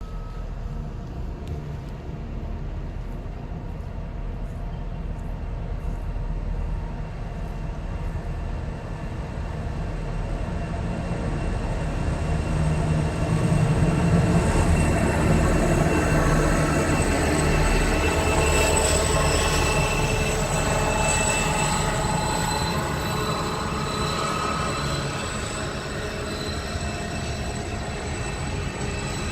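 Two Pacific National BL class diesel-electric locomotives running past at low speed, hauling a container train, their engines' low rumble growing louder toward the middle and then easing a little, with thin high-pitched squeal from the wheels above it.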